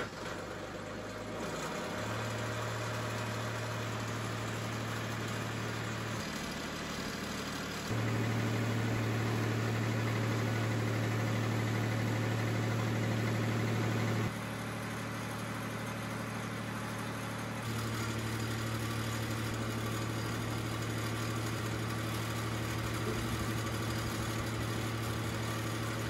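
TimberKing 2220 portable band sawmill's engine idling as it warms up: a steady engine hum whose level steps up and down a few times.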